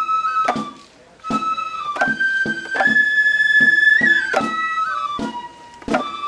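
Traditional festival procession music: a flute plays a high, held melody that steps between notes over steady drum strikes, with a short pause about a second in.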